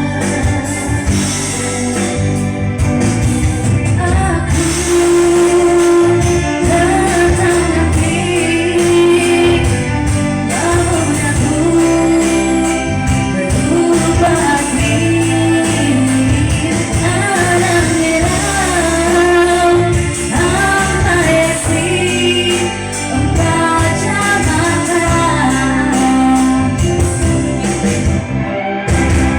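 A singer singing a song over loud amplified backing music with a steady bass line.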